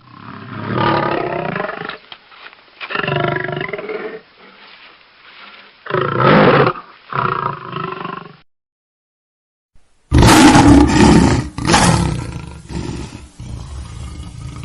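Lion roaring: two long roars, then shorter roars in quick succession. After a pause of about a second and a half, a second, louder and brighter recording of a lion roar starts suddenly and tails off into shorter pulses.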